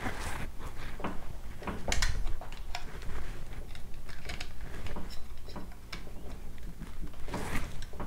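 Small plastic clicks and rattles from the Nest x Yale smart lock's parts as the wire connector is plugged in and the plastic housing is handled, with brief rustling near the start and again near the end.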